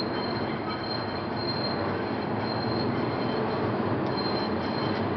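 R46 subway train pulling out of an elevated station, its wheels running steadily on the rails with a thin high-pitched wheel squeal that comes and goes.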